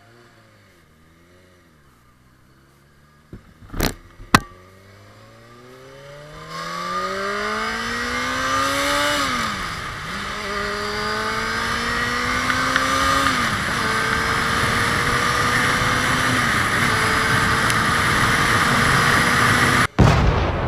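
Honda CBR600F4i inline-four motorcycle engine idling, then pulling away and accelerating. The pitch climbs and drops twice at upshifts, then settles into a steady cruise under rising wind rush. Two sharp clicks come about four seconds in.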